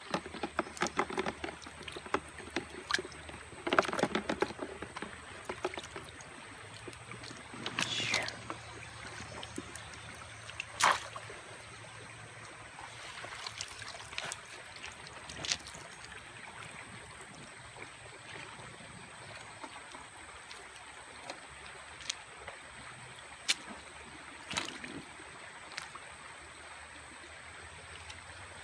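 Cast net being worked over a plastic bucket of minnows beside a shallow stream: scattered knocks, rattles and splashes, busiest in the first few seconds, with a sharp knock about eleven seconds in, over the steady trickle of stream water.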